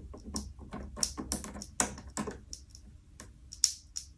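Irregular crackling and sharp clicks from a loose live wire making and breaking contact in a junction box: the 'grésillement' of a bad electrical connection arcing, which can trip the RCD or start a fire.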